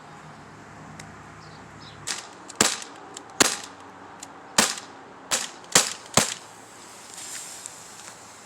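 CO2 pellet gun firing a string of sharp pops, about seven strong shots irregularly spaced over roughly four seconds, some with the crack of pellets striking the LiPo batteries.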